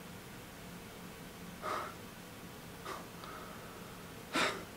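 A man breathing out through his nose in three short breaths, the last and loudest near the end, over a faint steady hum.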